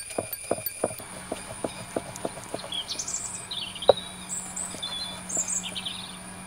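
Stone roller knocking and rolling on a wooden board, crushing butterfly pea flowers to press out their juice, in a run of light knocks with one louder knock near the middle. Birds chirp from about halfway through.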